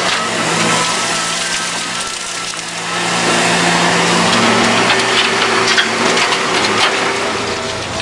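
Diesel engine of a Liebherr crawler excavator running and picking up revs under hydraulic load as it digs and swings, with a clatter of soil and stones dropping into a dump truck's bed between about five and seven seconds in.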